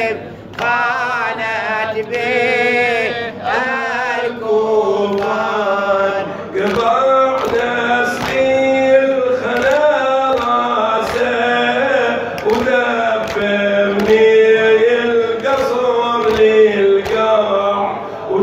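Male radood chanting a noha (Arabic Shia lament) in a melismatic wailing line into a microphone. From about six seconds in, a steady beat of sharp thumps, about one and a half a second, keeps time under the chant.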